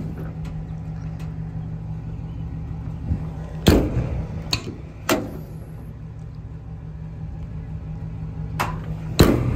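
Steel compartment doors on a utility truck body being opened and shut: a few sharp metal clunks and latch clicks, the loudest about four seconds in and again near the end, over a steady low hum.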